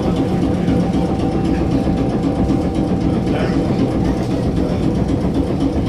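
Red Rattler F1 electric train running, a steady low rumble with a faint constant hum over it.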